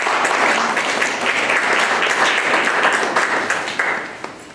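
Audience applauding: a dense patter of many hands clapping that thins and fades out near the end.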